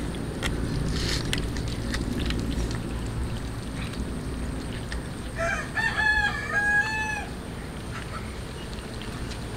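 A rooster crowing once: a call of several notes about two seconds long, a little past the middle. Underneath is a steady low rumble with a few faint clicks.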